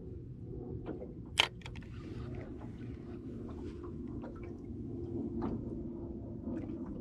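A boat's motor humming steadily and low, with one sharp click about a second and a half in and a few fainter ticks.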